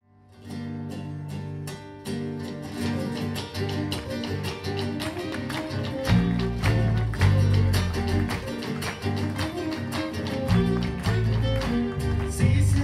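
Live band playing an instrumental passage led by picked acoustic guitars, fading in at the start. The low end grows much fuller about six seconds in.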